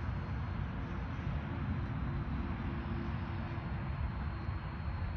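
Electric RC airplane's brushless motor and propeller droning steadily in flight at cruise throttle, heard at a distance over a low rumble.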